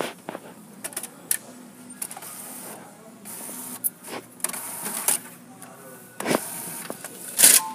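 HP OfficeJet 4650 inkjet printer running through its cycle: short stretches of whirring from its mechanism broken by sharp clicks, with a louder clatter near the end.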